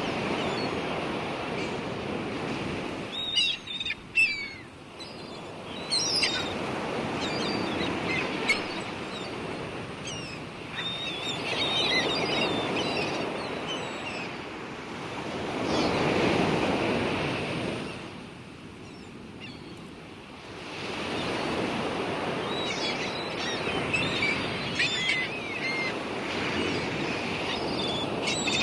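Surf washing in slow swells that rise and fall every few seconds, with short high bird chirps over it.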